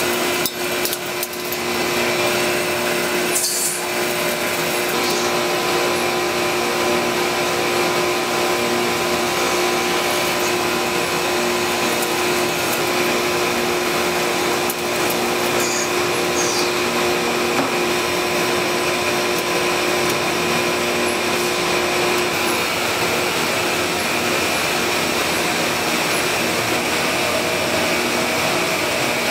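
CNC lathe running as it turns a steel step drill bit: a steady machine drone of spindle and cutting with several held tones, one lower tone dropping out about two-thirds of the way through.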